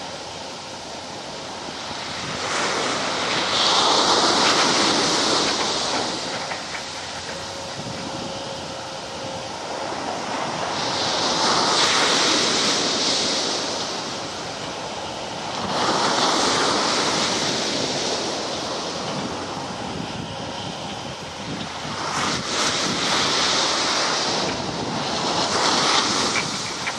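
Rushing beach wind and surf noise that swells loud and fades away about five times, each swell lasting a couple of seconds.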